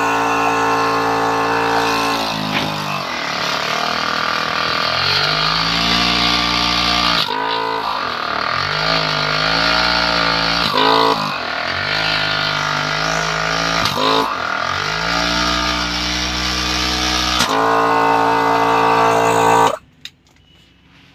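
12 V heavy-duty portable air compressor running off the car's cigarette-lighter socket, its motor pitch shifting down and back up several times. It cuts off suddenly near the end as it is switched off.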